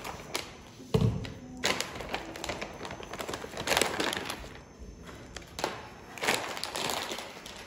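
Frozen smoothie-blend fruit tipped from a plastic bag into a blender jar: pieces knocking and thudding into the jar in a few separate bursts, with the bag crinkling.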